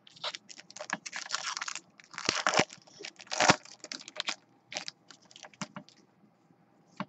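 Foil trading-card pack wrapper being torn open and crinkled by hand: a dense run of irregular crackling rustles for the first four seconds or so, then a few scattered crinkles and a single click near the end.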